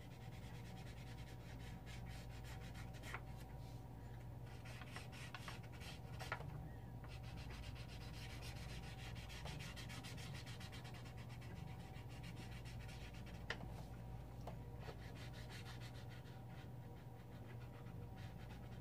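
A Prismacolor art marker's felt nib rubbing back and forth on paper in quick, continuous strokes as an area is filled in with colour, faint, with a few small clicks of the marker and a faint steady hum underneath.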